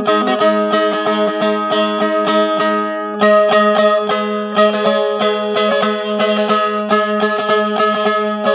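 Phin, the Isan plucked lute, played solo: a quick run of plucked melody notes over a steady drone string.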